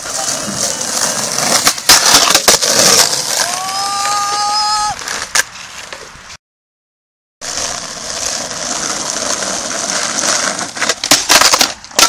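Skateboard wheels rolling over rough tarmac, with several sharp board knocks and clacks. About three and a half seconds in, a squeal rises and then holds for about a second and a half as the board grinds the metal flatbar. The sound cuts out for about a second midway, then the rolling resumes, with a quick run of clacks near the end.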